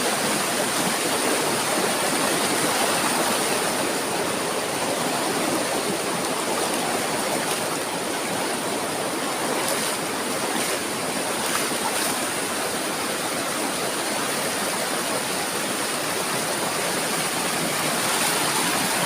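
Small waterfall and river water rushing steadily.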